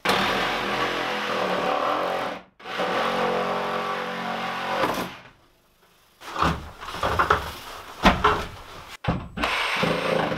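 Power drill boring a corner hole through OSB wall sheathing: the motor runs under load in two bursts of a couple of seconds each, then in shorter, uneven bursts near the end.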